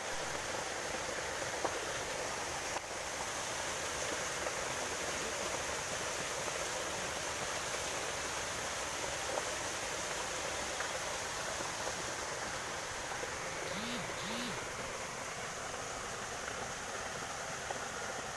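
River water flowing with a steady rushing sound. Two brief faint chirps come about fourteen seconds in.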